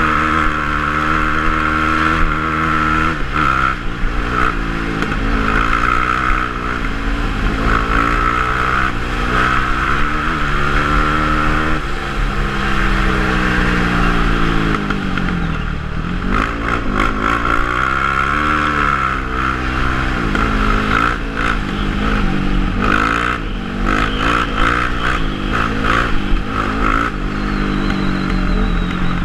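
Quad ATV engine revving up and down on a gravel dirt track, its pitch repeatedly rising and falling with the throttle. Stones and bumps rattle and clatter against the machine, more often in the second half.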